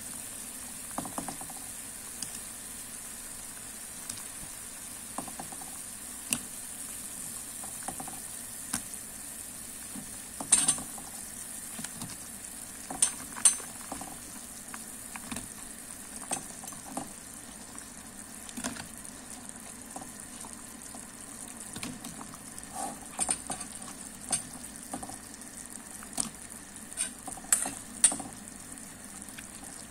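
Shrimp and vegetable soup boiling in an aluminium saucepan, a steady bubbling hiss. Scattered sharp clinks and knocks sound as pieces of eggplant and okra are dropped into the pot, with the louder ones in the middle and near the end.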